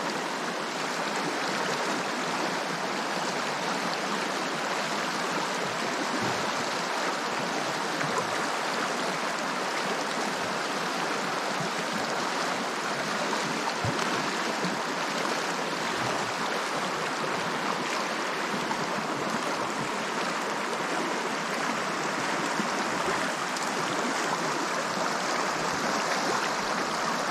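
A river rushing steadily, running high and fast at about twice its usual flow.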